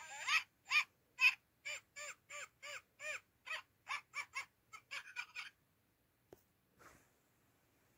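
Oriental kittens mewing: a quick run of short calls that rise and fall in pitch, about two or three a second, stopping about five and a half seconds in. A single soft click follows.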